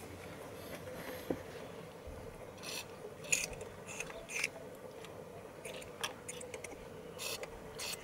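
Hands working a plastic multi-pin door wiring connector in the door jamb: a series of short scrapes, rubs and clicks from a few seconds in, over a faint steady hum.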